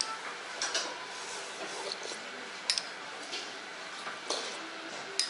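A few light, sharp clinks of china bowls and tableware, over a steady background hum.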